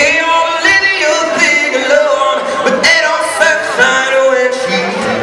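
Live concert music: several voices singing a melody together, with little bass until a low, steady bass note comes in near the end.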